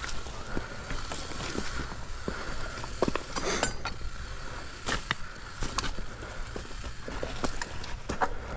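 Scattered clicks, clinks and scuffs of a mountain bike being handled on loose rock, with footsteps on the rocky ground.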